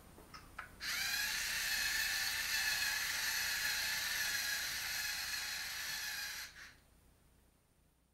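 Lego robot's electric wheel motors running for about six seconds as it drives its wheels through a programmed ten turns: a steady whine of motor and gears that starts about a second in and stops abruptly. A couple of light clicks come just before it starts.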